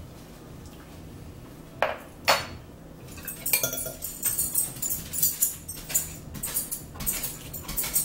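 Metal fork clinking against a ceramic salad bowl: two sharp clinks about two seconds in, then from about halfway a quick run of clicking and scraping as cucumber slices are speared.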